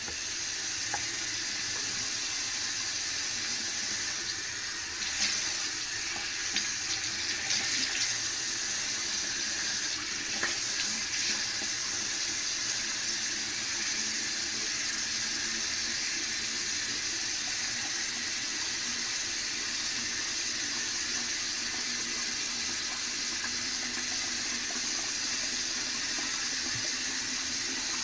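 Bathroom sink faucet running, a steady stream of water falling into the ceramic basin, with uneven splashing between about five and eleven seconds in.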